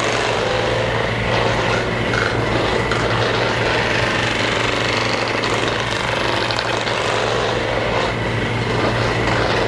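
Electric percussion massage gun running steadily against the body, a continuous rapid buzzing over a constant low hum.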